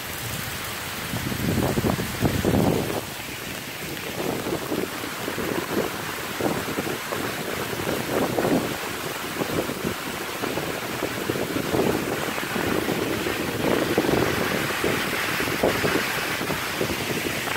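Heavy hurricane rain pouring steadily, with strong wind gusting in irregular surges.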